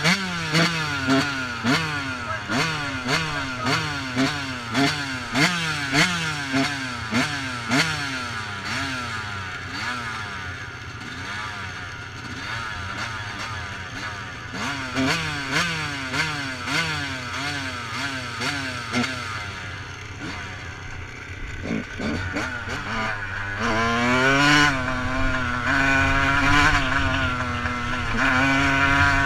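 Yamaha YZ125 two-stroke motocross engine revved in quick repeated throttle blips, about two a second, settling to a lower run between blips. Near the end it pulls away, the revs rising and stepping through a gear change.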